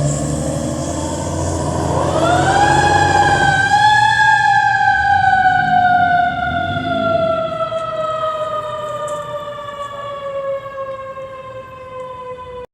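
Fire truck siren rising over about two seconds, then a long, slowly falling wail that cuts off suddenly at the end. A truck's engine rumbles underneath at first.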